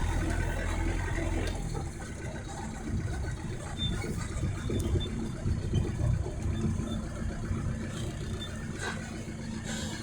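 An engine running steadily, which cuts off about two seconds in; an uneven low rumble goes on after.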